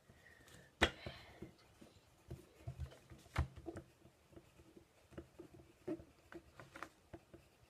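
Scattered light clicks, taps and knocks of small objects being handled close to the microphone, with one sharper click about a second in.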